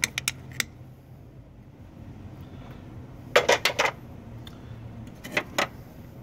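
Metal hand tools clinking and knocking against metal while working a socket onto the speed sensor bolts in the engine bay: a few sharp clicks at the start, a loud cluster of clinks about three and a half seconds in, and two more near the end, over a low steady hum.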